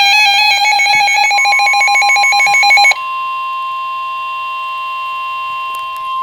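Weather radio alert: a rapidly pulsing, warbling electronic tone pattern for about three seconds, then an abrupt switch to a steady, loud single alarm tone, the NOAA Weather Radio 1050 Hz warning alarm that announces a warning.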